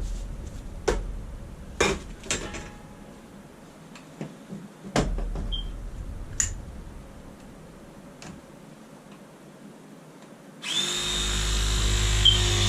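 A few clicks and knocks from pipe and fittings being handled. Then, near the end, a battery-powered PEX crimping tool starts its motor and runs steadily to close a fitting.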